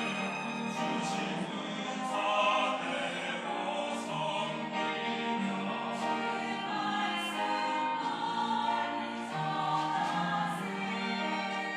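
Church choir singing a sacred anthem in sustained chords.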